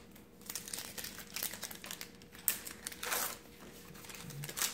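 Foil booster-pack wrappers crinkling and crackling as Magic: The Gathering packs are handled and opened, in irregular rustles with a louder crackle past the middle.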